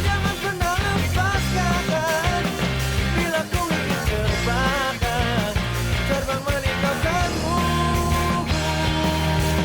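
Background rock music: a melodic lead line bending up and down in pitch over steady bass notes and drums.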